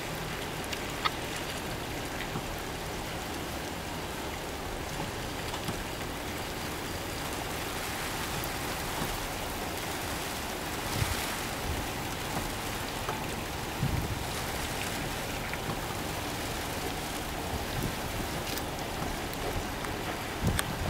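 Four-door Jeep Wrangler creeping slowly up a steel teeter-totter ramp, its engine faint under a steady outdoor hiss, with a few dull low thumps about halfway through.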